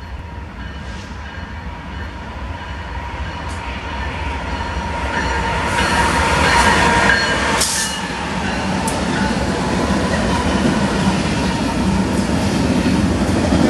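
BNSF diesel freight locomotives approaching and passing close by, getting louder to a peak about six to eight seconds in. After that the double-stack container cars of a long freight train roll past on the rails.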